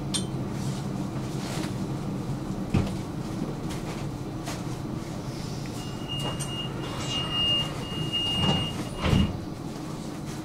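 Inside a tram: a steady low hum. About six seconds in, a high steady warning tone sounds for about three seconds, broken by short gaps, while the sliding doors close with two heavy thumps.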